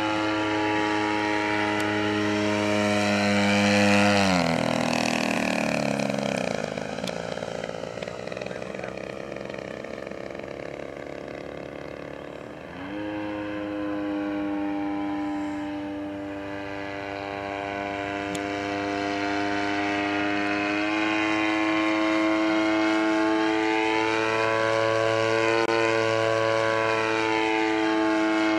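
Model Sopwith Camel's motor and propeller droning in flight. The pitch falls steeply as the plane passes closest, about four seconds in, stays low and quieter for a while, then climbs back about thirteen seconds in and holds steady with a slow waver.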